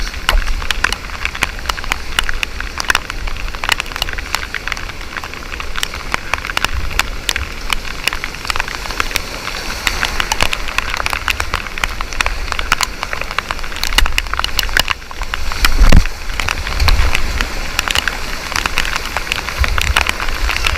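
Whitewater rapids rushing, with a constant crackling patter of splashing water over a low rumble. There is a heavier surge of water about sixteen seconds in.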